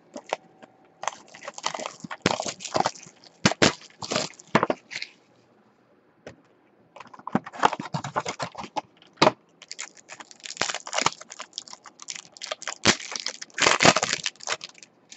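Crinkling and crackling of a foil-wrapped trading card pack and its box packaging being torn open by hand, in quick irregular bursts with a lull of about two seconds midway.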